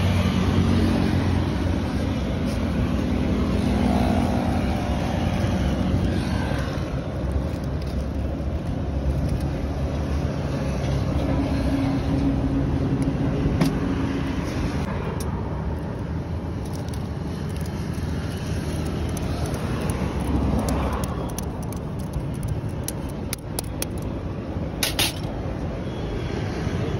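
Steady road traffic noise, with vehicle engines running past. A few short light clicks come near the end.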